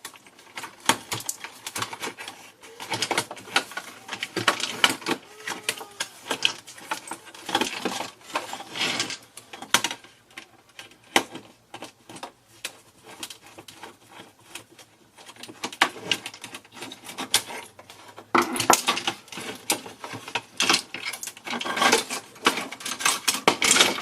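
Parts of a plastic clock radio being handled and taken apart: a dense run of clicks, clatter and rustling, with a quieter stretch in the middle.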